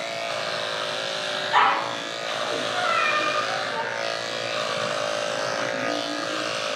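Electric dog grooming clippers with a #10 blade running steadily as they shave through a terrier mix's coat. A dog barks about a second and a half in, and there are more short dog calls around three seconds in.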